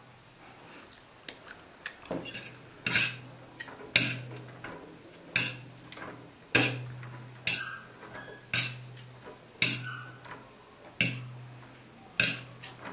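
Metal cutlery clinking and scraping against a ceramic plate while instant noodles are tossed and mixed, about one sharp clink a second.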